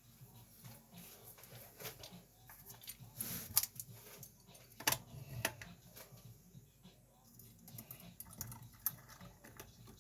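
Faint, irregular small metallic clicks and scrapes of a wire lever pick and tension tool working the levers inside a five-lever British Standard deadlock. A few sharper clicks come about three to five seconds in.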